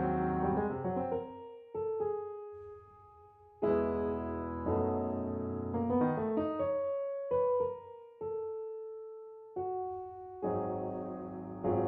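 Solo piano music: chords and single notes that ring out and fade, with new chords coming in partway through and near the end.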